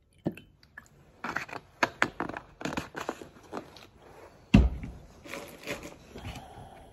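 A run of short clicks and knocks as the plastic lamp-oil bottle is capped and handled after pouring, with one heavier thump about four and a half seconds in.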